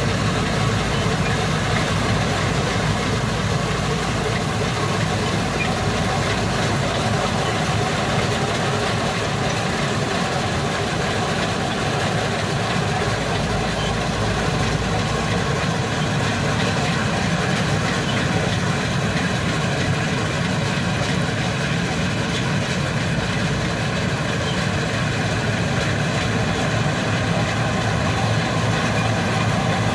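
Bizon combine harvester running at a steady pitch while cutting and threshing a standing crop; its engine and machinery make a constant, even drone.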